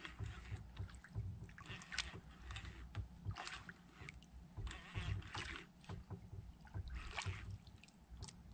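Water lapping and sloshing against the hull of a small wooden outrigger boat in soft, irregular washes about once a second, over a low steady rumble.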